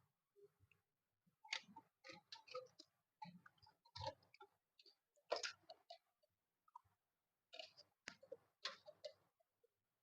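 Faint, irregular clicks and small rattles of plastic cable connectors and wires being handled as a power connector is worked onto a hard disk in a PC case; the connector is a tight fit.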